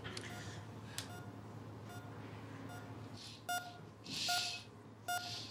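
Hospital patient monitor beeping at a steady pulse, one short electronic beep a little under every second. A few soft whooshes come in over it in the second half, the loudest about four seconds in.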